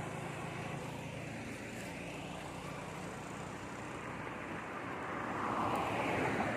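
Road traffic: a motor vehicle engine running steadily, with another vehicle passing and swelling louder near the end.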